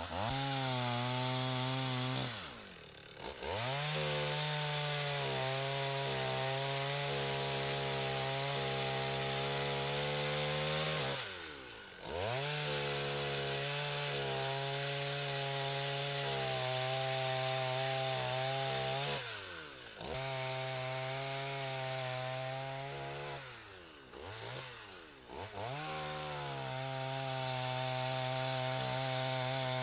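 Dolmar two-stroke chainsaw cutting through logs at full throttle. The engine note holds steady during each cut, then falls away briefly and revs back up four times between cuts.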